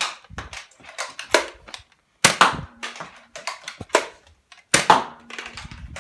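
Nerf Elite dart blaster fired three times, about two and a half seconds apart, each shot a sharp spring-plunger pop. Lighter clicks and clatter come between the shots.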